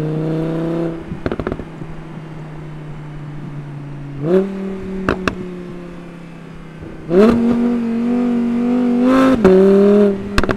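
Audi R8's 5.2-litre V10 running through its stock exhaust at part throttle, the engine note stepping down, then up about four seconds in. About seven seconds in the revs jump and the note gets loud for two seconds, then drops with a sharp crack. Short sharp exhaust pops are scattered between.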